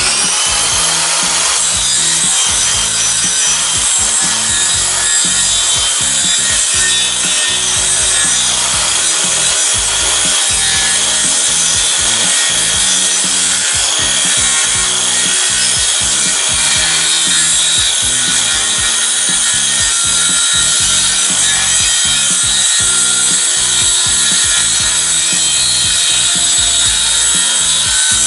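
A knock-off DeWalt-branded 185 mm corded circular saw running at full speed and cutting through half-inch marine plywood: a steady whine over continuous sawing noise.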